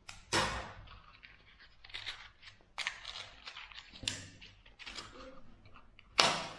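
Scissors put down on a wooden table and a box of safety matches opened and handled, with scrapes and clicks. Then a match is struck on the side of the box and flares up near the end, the loudest sound here.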